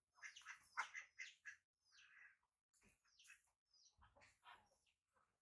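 Baby macaque giving a run of faint, short, high squeaks and chirps, some sliding down in pitch, with short gaps between them.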